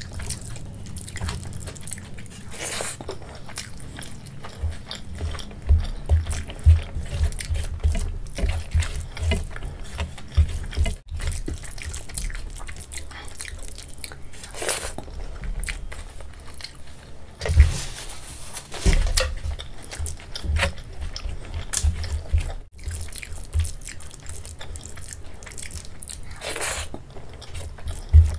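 Close-miked eating sounds: fingers squishing rice and kadhi together on a steel plate, with wet chewing and mouth smacks. A few louder wet squelches stand out here and there.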